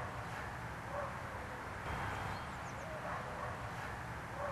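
Faint steady outdoor background hiss with a few faint high bird chirps.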